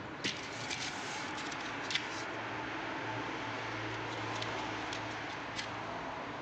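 A few light clicks and knocks from a car radiator being handled, over steady background noise with a faint low hum.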